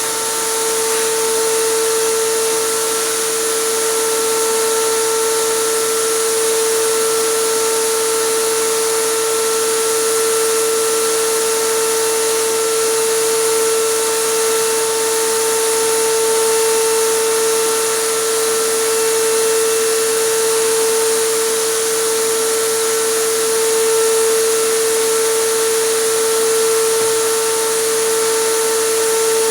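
Air compressor running with a steady pitched hum, under the constant hiss of its spray gun spraying acrylic resin.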